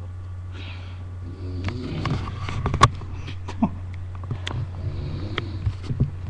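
A person snoring on and off, with a scatter of sharp clicks and knocks in between, the loudest a little under three seconds in. A steady low hum runs underneath.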